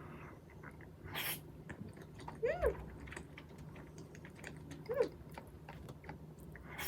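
Eating sounds: soft chewing with small wet clicks, a short rustle about a second in, and two brief whine-like sounds that rise and fall in pitch, one a little past two seconds in and one near five seconds.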